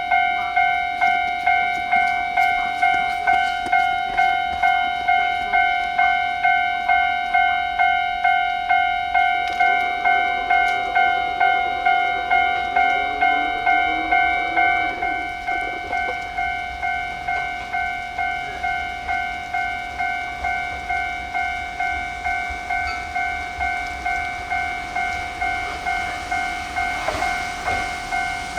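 Japanese railway level-crossing warning bell ringing steadily, about two dings a second, a little quieter from about halfway. A faint rising whine from a train under way comes through in the middle.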